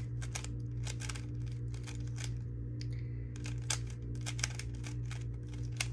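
A GAN 11 speed cube clicking as its layers are turned by hand, a quick, irregular run of sharp plastic clicks, several a second, while an OLL algorithm is repeated. A steady low hum runs underneath.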